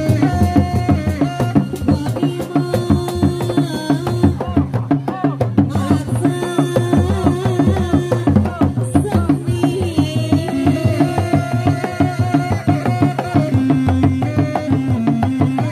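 Sundanese reak music played live: dogdog drums beaten in a fast, driving rhythm under a melody of held, wavering notes from a tarompet reed pipe.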